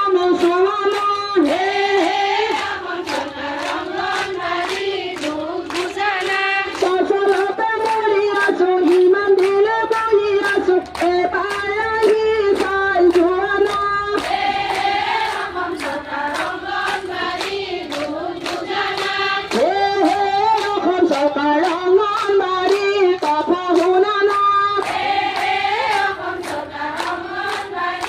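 A group of women singing together in unison, keeping time with steady hand claps about two a second.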